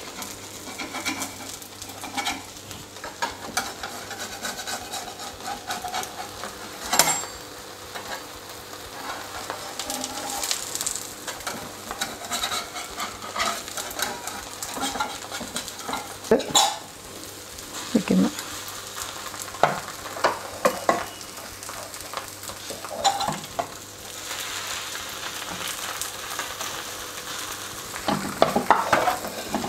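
Beaten egg frying in an oiled flat pan, a steady sizzle, with scattered taps and scrapes of a utensil against the pan and a quick cluster of knocks near the end.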